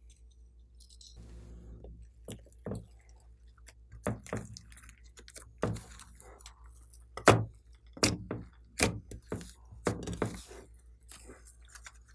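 Thick white slime being folded and stretched by hand in a glass dish, giving a string of sharp pops and squelches that come thickest in the second half. A faint steady low hum runs underneath.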